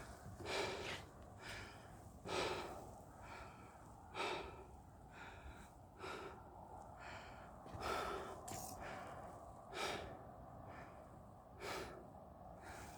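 A person breathing hard in a slow, even rhythm, one breath about every two seconds, as on a steep uphill walk.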